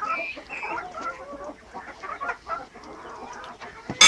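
Silkie chickens making many short, overlapping calls of varied pitch. A single sharp knock comes near the end and is the loudest sound.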